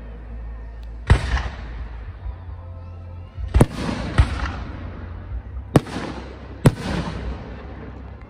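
Aerial firework shells bursting overhead: five sharp bangs at uneven intervals, each trailing off in a rolling echo.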